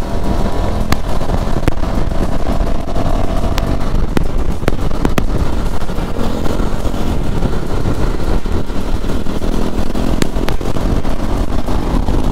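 Motorcycle riding at about 70 km/h: heavy wind rush over the helmet microphone with the engine running and tyre noise underneath, and a few short sharp pops scattered through.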